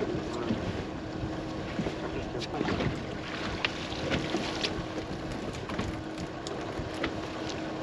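Wind buffeting the microphone on an open boat, with water washing against the hull and a steady low hum. A few short sharp clicks and splashes come through as a hooked bass is lifted out of the water by hand.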